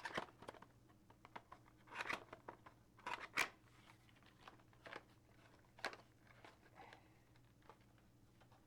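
A model train car's packaging being opened and handled: scattered faint clicks, crinkles and rustles of box and plastic, with one sharper click about three and a half seconds in.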